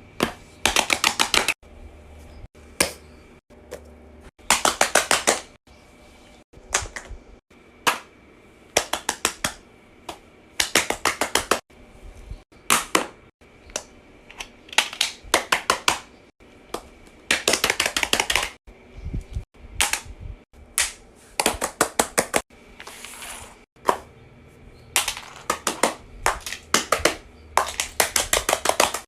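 A fidget toy being clicked or popped by hand in quick runs of sharp snaps, several to a run, the runs coming every second or two.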